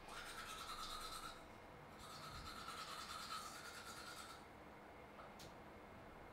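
Teeth being brushed with a toothbrush: faint scrubbing in two bouts with a short pause between, then quiet.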